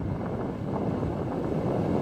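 Wind buffeting the microphone over the steady wash of small surf waves breaking on a sand beach.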